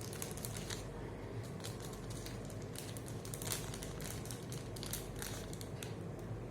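Irregular light clicks and rustles of small plastic packets from a rapid test kit, a lancet and alcohol pads, being handled and set down.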